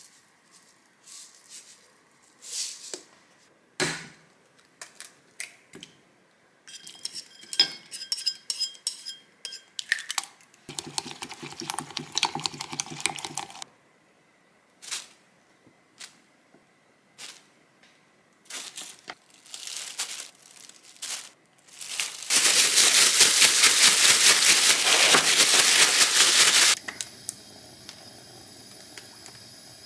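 Kitchen handling sounds from cooking prep: light clinks and taps of dishes and utensils, some crinkling, and a loud, rough noise lasting a few seconds near the end, followed by a faint steady hiss.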